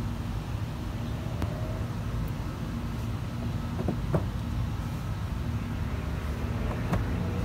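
Steady low vehicle rumble, with a few light clicks as plastic fender-liner fasteners are pushed back in by hand.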